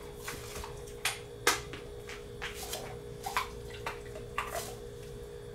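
Irregular light clicks and small taps, the sharpest about a second and a half in, over a steady hum.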